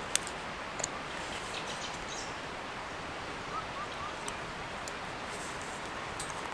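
Steady rushing outdoor background, with a few sharp clicks scattered through it and three faint short chirps in quick succession a little past the middle.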